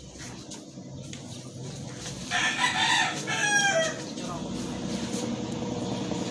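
A rooster crowing once, starting about two seconds in and ending in a falling tail, over a steady low background hum.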